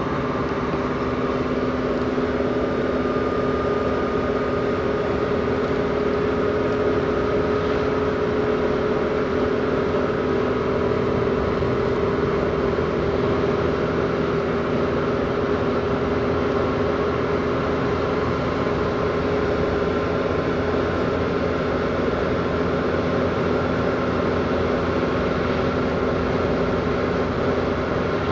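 Suzuki Baleno driving at around 90 to 100 km/h, heard from inside the cabin: a steady engine drone with a few held tones over road and wind noise.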